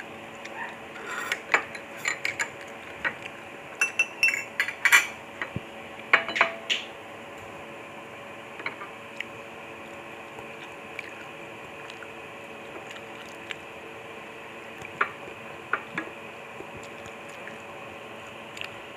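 Eating utensils clinking against a bowl of noodle soup: a busy run of sharp clinks in the first seven seconds, then only a few scattered single clicks.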